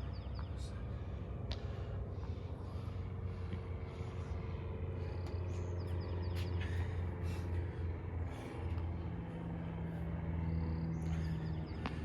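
A motor vehicle engine running steadily with a low hum, its pitch stepping up about nine seconds in, with scattered faint clicks and short high chirps over it.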